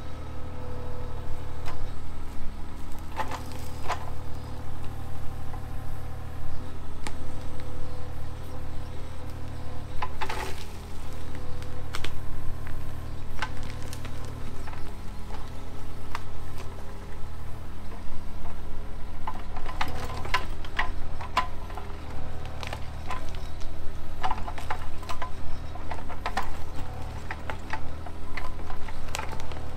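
Kobelco mini excavator's diesel engine running steadily under hydraulic load as its bucket digs out tree stumps, with scattered cracks and knocks of roots and wood that come more often in the last third.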